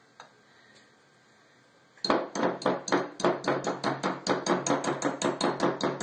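A kitchen utensil knocked rapidly and repeatedly against a mixing bowl, about six sharp knocks a second starting about two seconds in, to shake off sticky peanut butter cookie dough.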